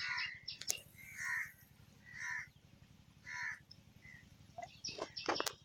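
A crow cawing, three short caws about a second apart in the middle of the stretch. There are sharp knocks near the start and a cluster of them near the end.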